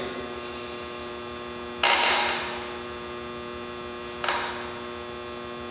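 A man breathes out sharply twice after swallowing a sip of whiskey, clearing the alcohol vapour. The first exhale is louder and the second, about two seconds later, softer. A steady electrical hum runs underneath.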